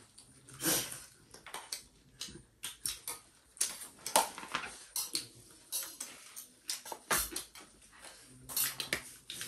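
Eating sounds: irregular crunching of crisp panipuri and chatpate, with spoons clinking against plates or bowls.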